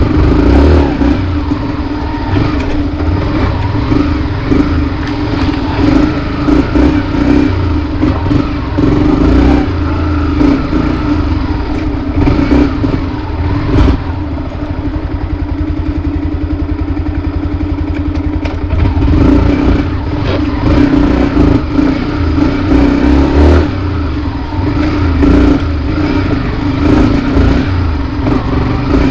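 Yamaha WR155R's single-cylinder four-stroke engine running steadily while the bike is ridden off-road, its note rising and falling slightly with the throttle.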